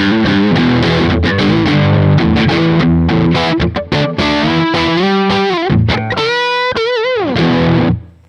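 Seven-string electric guitar played through distortion on two single-coil pickups wired in series, giving a humbucker-like tone. It plays dense chords, then single-note lead lines with wide vibrato and a note sliding down in pitch, and stops abruptly just before the end.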